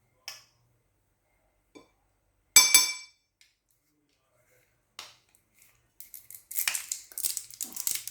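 A metal teaspoon clinking against a dish while spices are measured out: two sharp ringing clinks about two and a half seconds in, with lighter taps before and after, then a run of scraping and rustling over the last two seconds.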